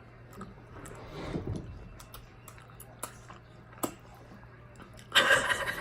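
Eating sounds: scattered small clicks and smacks from chewing chicken wings, over a faint steady hum. About five seconds in comes a short, louder rush of noise.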